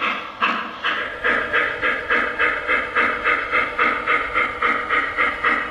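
Lionel Legacy 2-truck Shay O-scale locomotive's onboard sound system playing steam exhaust chuffs, a steady rhythm of about three chuffs a second that quickens slightly about a second in.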